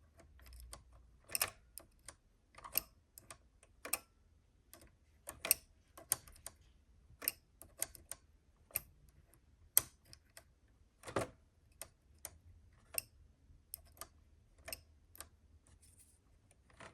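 Irregular small metal clicks and taps, about one or two a second and uneven in strength, as a small hand tool grips and turns the nut on a cut-down screw in a 1:12 RC crawler's lower link and shock mount.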